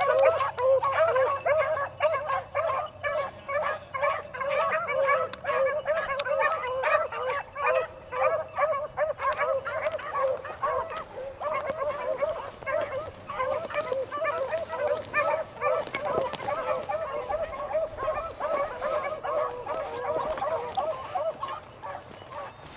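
A pack of beagles baying on a rabbit's track, several hounds' voices overlapping in quick, steady cries. The cry fades away near the end.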